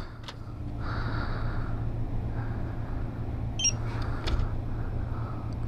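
Lottery ticket self-checker giving a short, quick electronic beep about two-thirds of the way through as a ticket is scanned, over a steady low hum.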